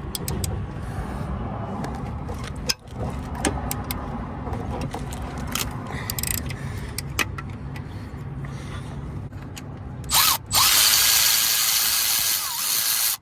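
Wrench ratchet clicking on the 14 mm alternator bracket bolts as they are broken loose. About ten seconds in, a power tool gives a short burst, then runs loudly and steadily, spinning a bolt out.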